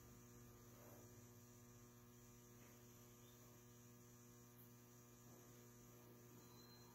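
Near silence: a steady low electrical hum.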